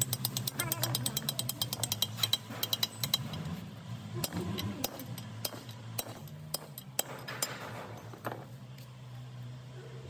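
Hammer blows on a steel drift, ringing metal on metal as a bearing is driven into its cast housing: a fast run of light taps for the first three seconds or so, then slower single blows that die out after about seven seconds. A low steady hum runs underneath.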